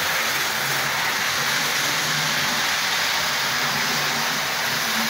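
Model railway train running round the track: a steady whirring rumble from the locomotive's motor and the wheels on the rails.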